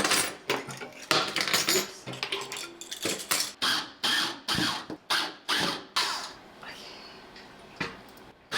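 Hard objects being handled and set down: a quick irregular run of clinks, knocks and scrapes, thinning out near the end.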